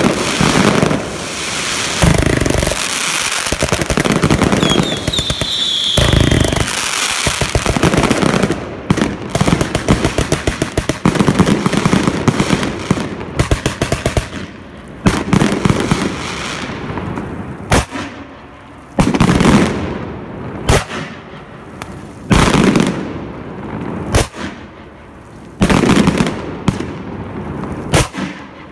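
Fireworks display: a string of sharp cracks and heavy booms every few seconds, with a long run of rapid-fire crackling from about eight to fourteen seconds in.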